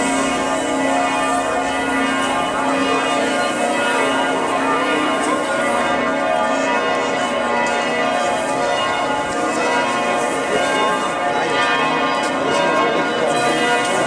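Church bells pealing, many bells ringing at once with their tones overlapping in a steady, unbroken peal.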